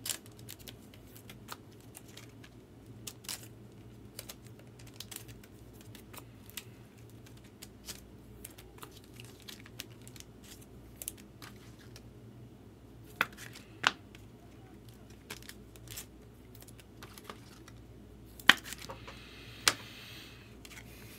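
Trading cards being slid into penny sleeves and rigid plastic top loaders: a string of small plastic clicks and taps with light crinkling, over a low steady hum. A few sharper taps come about two-thirds of the way in and near the end.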